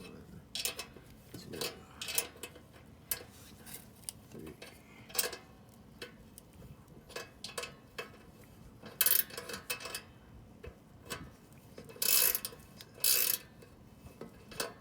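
Ratchet wrench clicking in short bursts, with metal hand tools clinking, while the axle nuts and chain adjuster bolt of a Coleman CT200U minibike are being turned. The longest, loudest bursts of ratcheting come about nine seconds in and again around twelve to thirteen seconds.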